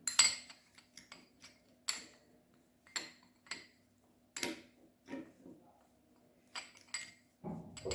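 A spoon clinking and scraping against the sides of a bowl while a thick scrub mixture is stirred, with short ringing taps about once a second and a quick cluster near the end.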